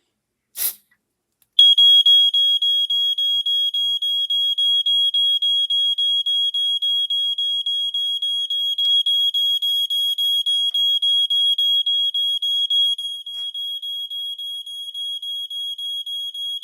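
Smoke alarm going off in a smoke test: its piezo horn sounds a shrill single tone, pulsing rapidly about five times a second, and sets in about a second and a half in. Just before it there is a brief hiss, the test smoke being sprayed. The alarm is detecting the smoke and responding. The horn drops a little in level near the end.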